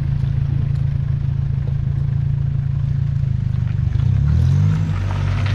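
4x4 SUV engine running steadily close by; about four seconds in its speed rises and then settles to a different pitch, as if the vehicle is briefly revved.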